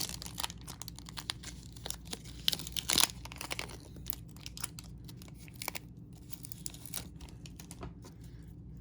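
Trading-card pack wrapper crinkling and tearing as cards are handled: a dense flurry of crackles in the first three seconds, then sparser ones.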